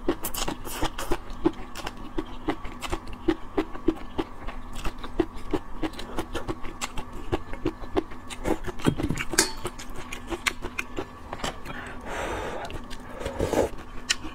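Close-miked eating sounds: wet chewing of kelp strands, with many quick mouth clicks. There are longer slurps about nine seconds in and again near the end.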